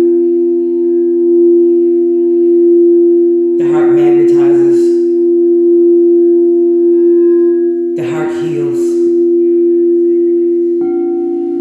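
Crystal singing bowls ringing with a steady, sustained two-note tone, a higher bowl joining in shortly before the end. A low voice sings two short wordless phrases over the ringing, about four and eight seconds in.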